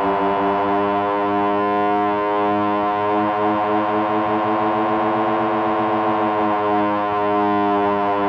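Sustained electronic synthesizer drone: one held pitch with many overtones, wavering slightly but never gliding or breaking.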